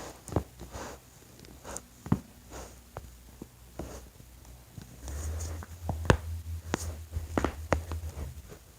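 Neck joints cracking as a person twists and cracks their own neck: a string of sharp clicks and pops, the loudest about six seconds in, with a low rubbing rumble of body movement in the second half.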